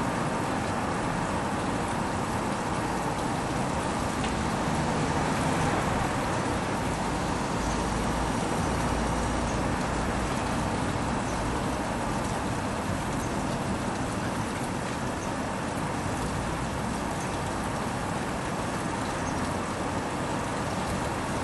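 Steady background hum of distant road traffic, with a low rumble swelling about eight seconds in.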